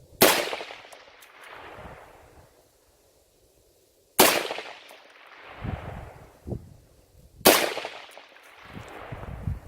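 Three rifle shots from a .223 AR-15 firing Tula ammunition, about three to four seconds apart. Each sharp crack is followed by an echo that dies away over a second or two.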